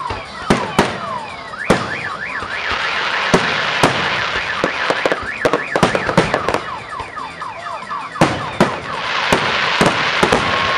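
Aerial fireworks display: repeated sharp bangs of bursting shells over a dense cluster of whistling fireworks, their whistles gliding down and up in pitch like a siren. A thick hiss swells twice, around three seconds in and again near the end.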